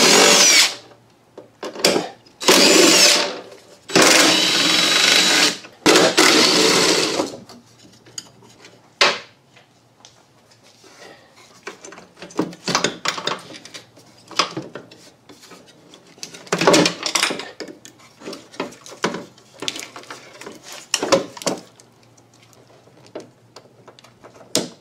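A power tool spinning out the 10 mm bolts of a wiper linkage assembly, in several loud runs of a few seconds each. After them come scattered clicks and clunks of parts being worked loose and handled.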